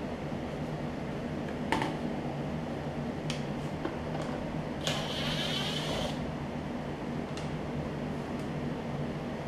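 Cordless drill-driver whirring for about a second, backing a screw out of the plastic engine cover, with a few light clicks of tool handling before it. A steady low hum runs underneath.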